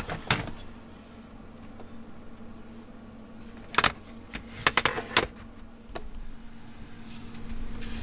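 Sharp clicks and knocks of camper windows being unlatched and slid open, a few near the start and a cluster about four to five seconds in, over the steady hum of the camper's furnace running.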